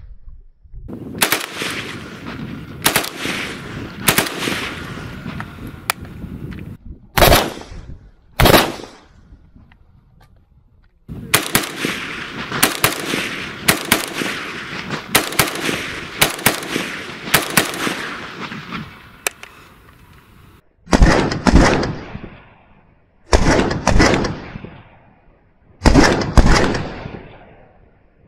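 VULKAN-M bullpup AK rifle in 5.45 firing ordinary cartridges through its muzzle brake, unsuppressed. A run of shots opens, then two single shots, a long string of about fifteen shots, and three short groups of shots near the end, each shot trailing off in echo.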